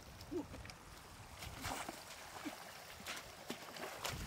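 Shallow water splashing and sloshing, with a louder splash about a second and a half in and two sharp knocks near the end.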